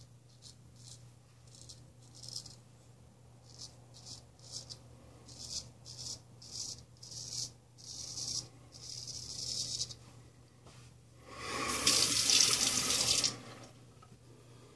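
Ralf Aust 5/8 round-point straight razor scraping through lathered stubble on the neck in many short strokes. Near the end a tap runs into the sink for about two seconds.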